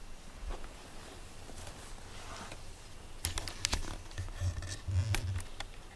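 Domestic cat purring right up against the microphone: a low pulsing rumble that swells about three seconds in. Scratchy clicks and rustles of fur brushing close by run through it.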